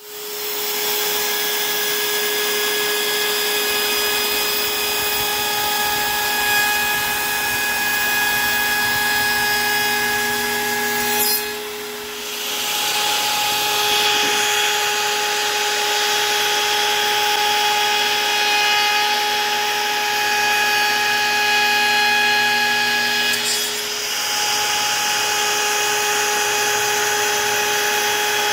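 CNC router spindle running at high speed, its 5/8" two-flute carbide bit cutting across the end grain of a maple log slice to flatten it: a steady high whine over a rough cutting noise. The sound drops briefly about twelve seconds in and again near the end.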